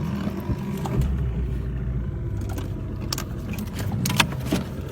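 An engine running steadily with a low drone, a little heavier for about a second near the start, with a few sharp clicks and knocks in the second half.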